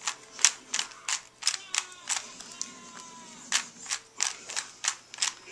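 Rubik's Cube faces being turned by hand: a run of quick, uneven plastic clicks, two or three a second, with a pause of about a second and a half midway.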